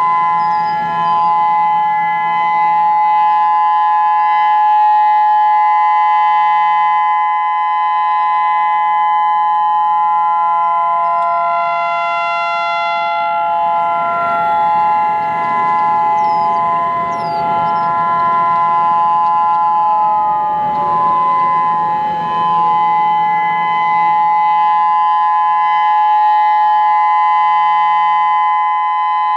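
Federal Signal EOWS 612 electronic warning siren, one set of its drivers run off a 200-watt stereo, sounding a loud, steady multi-tone chord for a siren test. Partway through, an extra siren tone joins, and about two-thirds of the way in it slides steadily down in pitch, like a siren winding down.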